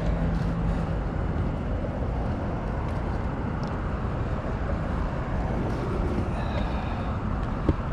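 Steady rumble of road traffic passing.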